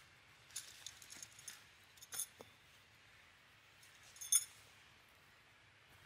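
Light metallic clinks and rattles of a tent's corner ring and stake as the strap is hooked down in the ground. There are several small clinks in the first two and a half seconds and one louder clink about four seconds in.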